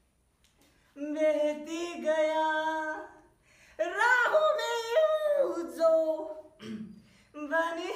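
A voice singing in long held notes that step up and down in pitch, in three phrases, with a rising slide about four seconds in.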